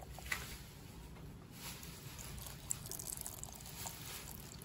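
Water poured in a thin stream from a glass into a blender jar onto garlic, candlenuts and whole spices: a faint, steady trickle.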